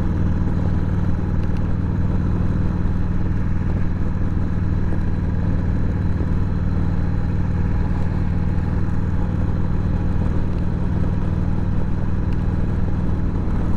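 Harley-Davidson Sportster's V-twin engine running under way at a steady speed, its note holding one even pitch with no shifts or revs.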